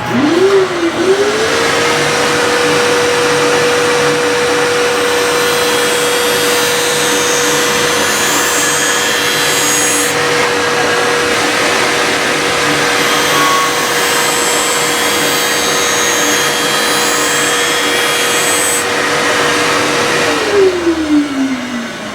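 Skate sharpening machine's grinding-wheel motor spins up with a quick rising whine and runs at a steady pitch. Through most of the middle the hiss of the wheel grinding a figure skate blade rises over it, as the blade is passed along the wheel to regrind its edges. Near the end the motor is switched off and winds down with a falling whine.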